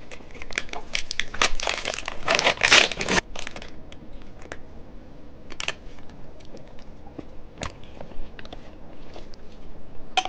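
Plastic wrapper of a cheese stick snack crinkling and tearing as it is peeled open, dense for the first three and a half seconds, then only occasional small crinkles and clicks.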